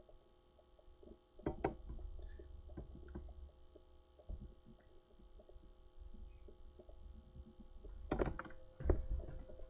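Low, steady electrical hum with a few sharp clicks, one about a second and a half in and a few more near the end.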